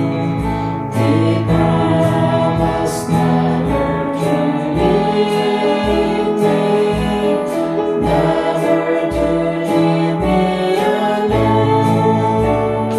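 A gospel hymn sung by several voices over instrumental accompaniment with a regular beat.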